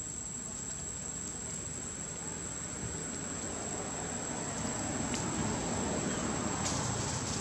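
Outdoor ambience: a steady, high-pitched insect drone over an even background hiss, with a couple of faint clicks.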